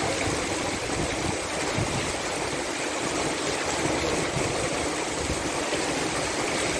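Hail and heavy rain falling on paving and parked cars: a steady, dense hiss with no let-up.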